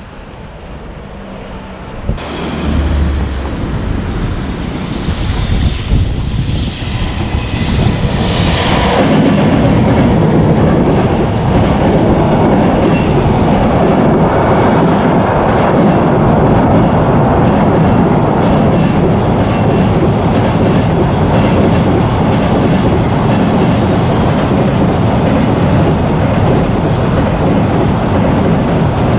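Train crossing a railway bridge, heard from beneath it. The sound builds from about two seconds in, with a faint high whine as it nears, and is steady and loud from about nine seconds on.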